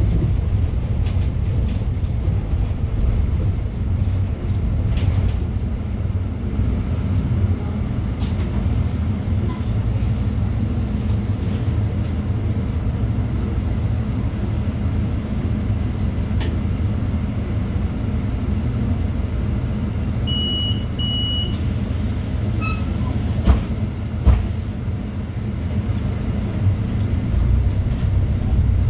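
Inside a moving city bus: steady engine and road drone with small rattles and clicks. About twenty seconds in there are two short high beeps, and a few seconds later two sharp thumps.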